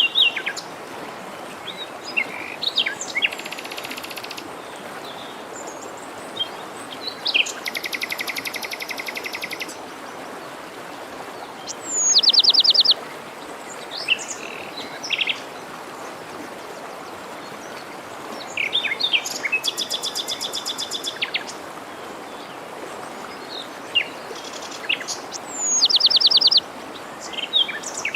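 Songbirds singing over the steady rush of a forest stream: repeated fast trills, a few of them long and buzzy, and short high notes that slide down into quick trills, with scattered chirps between.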